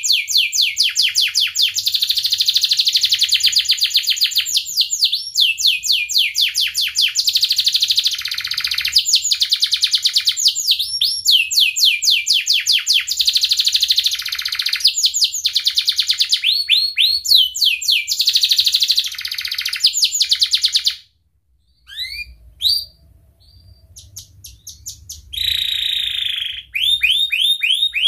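Domestic canary singing a long, fast song of rapid, repeated rising trill notes. A little past the middle the song breaks off for a few seconds, leaving only a few short chirps, then the trills resume.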